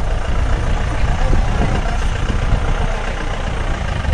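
Mahindra 4x4 jeep engine running steadily at low, idle-level revs with no throttle applied, as the jeep crawls up a steep off-road bank.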